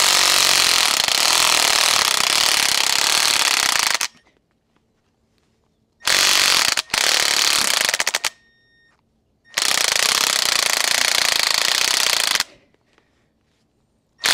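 Electric impact wrench hammering in short bursts as it unscrews the fine-thread top nut of a Harley-Davidson Road King Special front fork leg held down against its spring preload. It runs for about four seconds, stops, then fires again twice for two to three seconds each, and starts once more at the very end.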